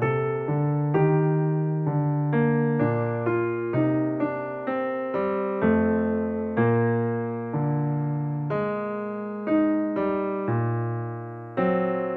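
Soft, slow piano music: single struck notes over low bass notes, each note fading after it is struck.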